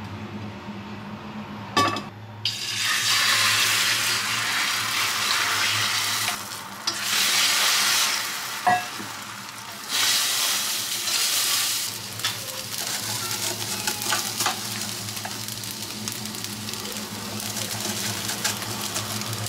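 Eggs and then fried rice frying in a nonstick frying pan: loud bursts of sizzling in the first half while the eggs are stirred with chopsticks, then a lower, steady sizzle with small clicks and scrapes of the spatula.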